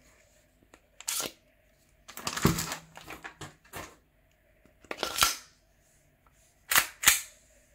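Handling noise from a Umarex Glock 18C airsoft pistol: a series of plastic-and-metal clicks, clacks and rattles as its 50-round extended magazine is pulled from the grip and the gun is turned over. Two sharp clacks come close together near the end.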